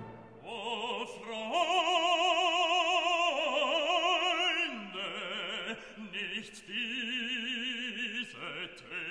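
Operatic singing with a wide vibrato over classical music: a few long held notes in phrases, the pitch stepping down partway through.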